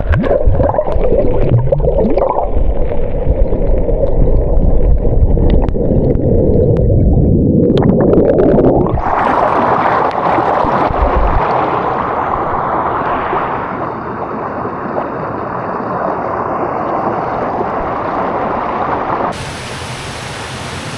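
Waterfall water rushing and splashing close to the microphone, heavy and muffled for the first nine seconds or so, then brighter and hissier. Near the end it drops abruptly to a quieter, steady rush of the falls.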